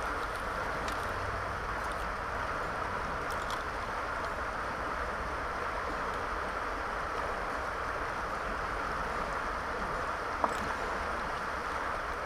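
Steady rush of flowing river water, with one sharp click near the end.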